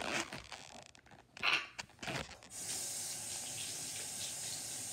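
A bathroom sink tap turned on about halfway through, running with a steady hiss of water. Before it comes a brief, louder burst of noise.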